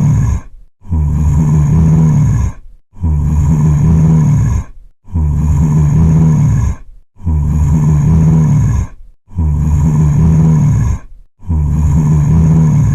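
Zombie groan sound effect: a low, rasping growl-moan repeated as a loop, about one every two seconds, with a brief silence between them.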